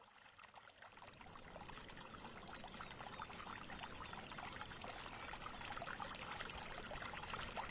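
Wall fountain's stream of water pouring from a clay jar spout and splashing, fading in over the first few seconds and then running steadily.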